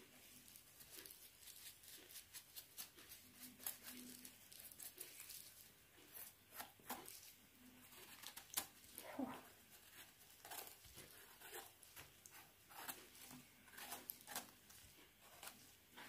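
Faint, scattered crackling and rustling of leaves and twigs on the forest floor, in irregular small clicks.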